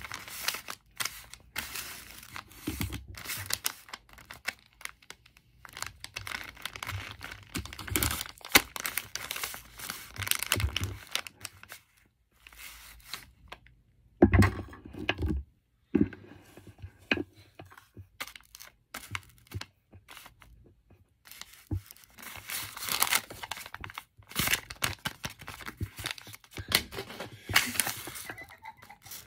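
Lined notebook paper of homemade blind bags crinkling, rustling and tearing under hands, in irregular bursts with a couple of short pauses.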